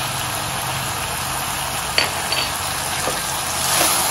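Guar beans and peas sizzling in oil in an open aluminium pressure cooker as a steel spoon stirs them. A sharp clink of the spoon against the pot comes about two seconds in, with a lighter one just after, and scraping strokes near the end.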